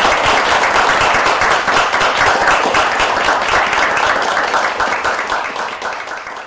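Applause, a dense patter of many hands clapping, that fades out near the end.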